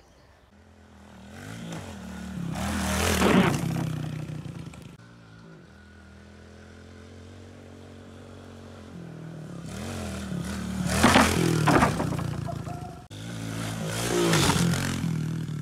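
Small Kawasaki KLX pit bike's single-cylinder four-stroke engine running and revving as it is ridden, swelling loud three times as the rider accelerates past. The sound cuts off abruptly about 13 seconds in and starts again.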